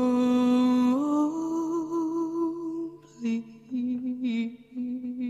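A slow background song with a solo voice. The voice holds a long note, steps up to a higher note about a second in, and starts a new sung phrase about three seconds in.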